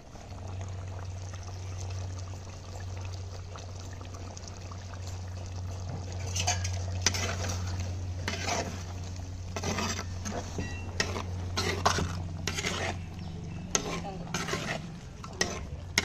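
Metal spatula stirring simmering chicken curry in a clay pot. From about six seconds in, it scrapes and knocks against the pot in a run of quick strokes, over a steady low hum.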